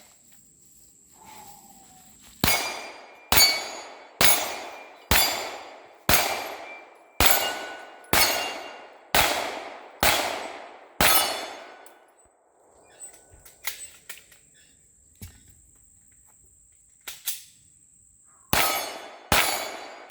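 Gunshots fired at a steady pace, about one a second, ten in a row, each with a ringing, echoing tail that fits hits on steel targets. After a pause with a few small clicks, shooting starts again near the end.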